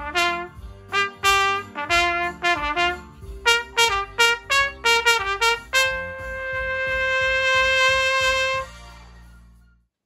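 Trumpet playing a tune of quick, separate notes, then holding one long high note that swells louder for about three seconds before stopping near the end.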